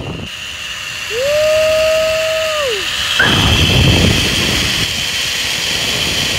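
Zipwire ride: wind rushing over the microphone and a steady high whine from the trolley running along the steel cable. About a second in comes a long held 'woo' from the rider, sliding up at the start and down at the end.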